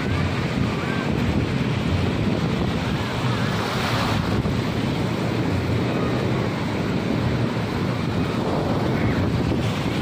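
Ocean surf breaking and washing up a shallow sandy beach, a steady rush of water that swells louder about four seconds in.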